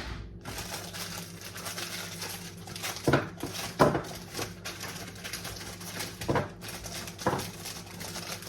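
Snacks and other items being put into a fridge: a handful of separate knocks and clunks with light rustling between them, over a steady low hum.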